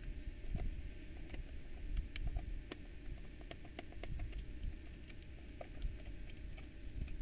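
Phillips screwdriver turning the small screws of a mixer's front-panel XLR combo jacks: faint, irregular small clicks and ticks of the driver tip in the screw heads, over low handling rumble.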